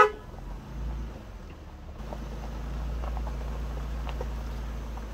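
A short vehicle horn toot cutting off at the very start, then the low steady rumble of the vehicle's engine, with a few faint clicks.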